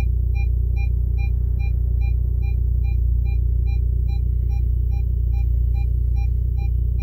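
Car speakers putting out a loud, steady low hum: the distortion noise from an aftermarket head unit that a ground loop isolator on the power wire has not cured. A short electronic beep repeats evenly over it, about two and a half times a second.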